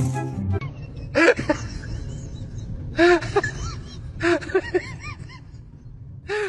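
Background music stopping about half a second in, then a puppy giving a handful of short whining cries, each rising and falling in pitch, spread over the next few seconds.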